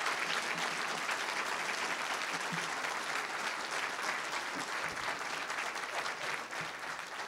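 Audience applauding, a dense, steady mass of clapping from a large room full of people.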